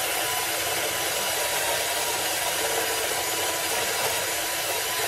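A hand-held power tool running steadily at the truck's front knuckle: an even hiss with a faint high whine.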